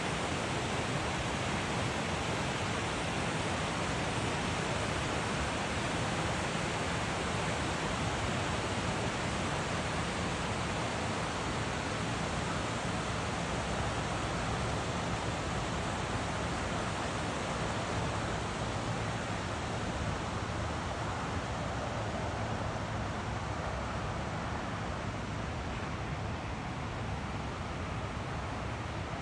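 Waterfall rushing: a steady, even wash of falling water, easing slightly near the end.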